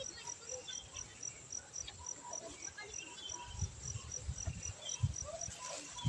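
An insect chirping steadily, a thin high pulse repeating about four times a second. Dull low bumps come in during the second half.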